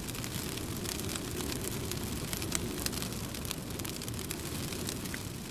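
Wood fire burning, a steady crackle with frequent sharp pops.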